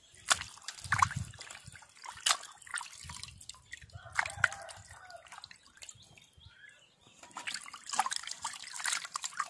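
Raw chicken being washed by hand in a stainless steel bowl of water: irregular splashes and drips as the pieces are rubbed and turned in the water.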